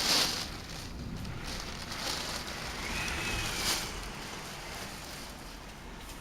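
Typhoon wind and rain as a noisy rushing hiss, with stronger gusts at the start that ease off.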